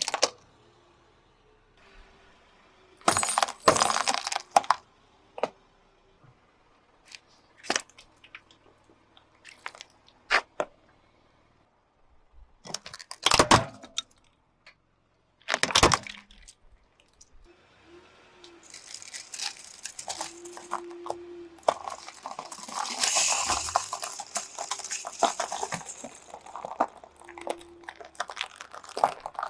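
A car tyre rolling over and crushing small objects one after another: several sharp cracks and crunches, including a squashing burst as a bowl of water beads is flattened, then a long stretch of continuous crackling and crunching near the end.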